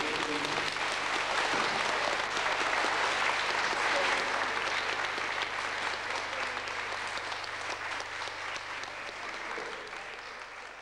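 Audience and performers applauding, many hands clapping together, gradually dying away toward the end.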